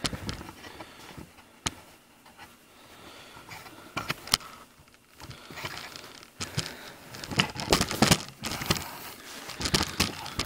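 Handling noise from a camera being picked up and carried: scattered clicks and knocks with rustling, busiest over the last few seconds.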